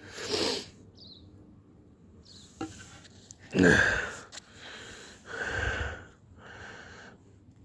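A man's heavy, noisy breaths and sniffs, several separate ones, the loudest about four seconds in.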